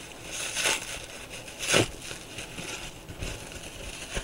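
Plastic packaging rustling and crinkling in short bursts as a replacement part is unwrapped by hand, the loudest burst a little under two seconds in.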